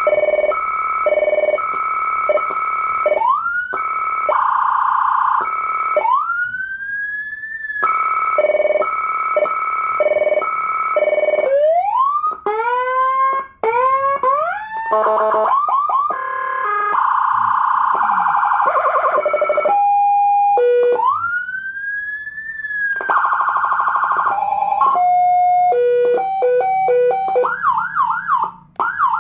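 A 150-watt electronic siren (150HX) played through its speaker, stepping through a series of tones: rapid pulsed beeping patterns, slow rising wails, quick rising yelps, short steady tones, and a fast warble near the end.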